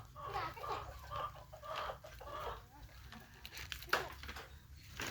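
Chickens clucking in a run of short calls, with a sharp click about four seconds in.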